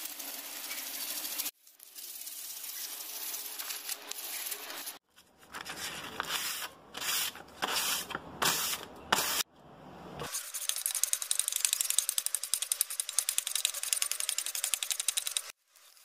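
Sandpaper and abrasive pads scrubbing back and forth across a flat aluminium sheet, brushing its surface. The sound comes in short takes with brief gaps: a steady rasping, then a handful of separate strokes, then fast, fine scratching.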